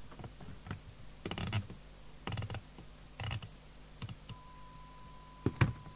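Bursts of quick mechanical clicks from a CB radio's rotary channel selector being turned through its detents to change channel, with single clicks between. The loudest clicks come near the end, and a steady high tone starts a little after four seconds in.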